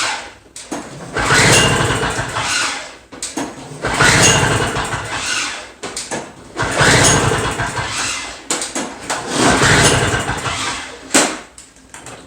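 Two-stroke Toro snow blower engine being pulled over on its recoil starter four times, each pull cranking it for about a second and a half without it catching: a flooded or no-start condition. A short click comes near the end.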